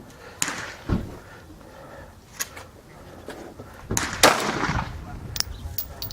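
Glock 19 9mm pistol being fired: about six sharp shots at uneven intervals, the loudest about four seconds in.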